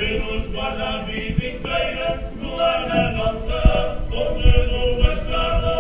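A group of voices singing together on stage, accompanied by guitars and an accordion, with long held notes that change pitch in steps. A few dull low thumps sound in the second half.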